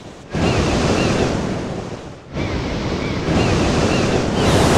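Surf breaking on a sandy beach: loud rushes of wave noise that swell in about every two seconds.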